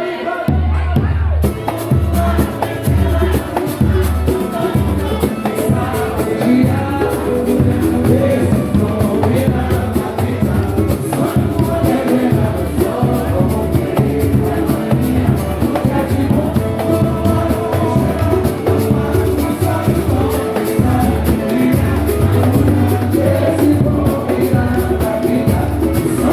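Samba-pagode music: singing over busy percussion and a pulsing bass line.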